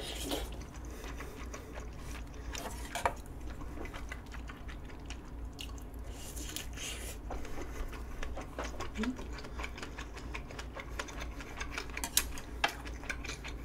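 A person eating close to the microphone: slurps of stew and noodles, chewing of a rolled omelette, and small clicks of chopsticks against a bowl, over a low steady hum.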